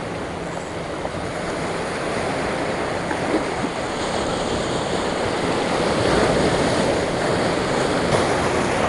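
Sea surf washing in and breaking over shoreline rocks: a steady rush of water that swells louder about six seconds in.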